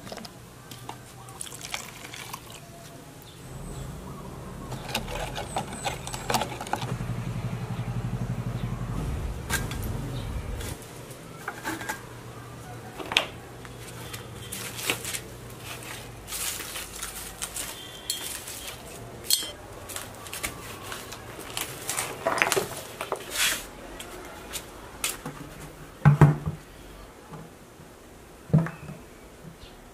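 Handling noises from plastic containers and soil: an irregular series of short knocks, clicks and clatters, with a low steady hum from about four to eleven seconds in.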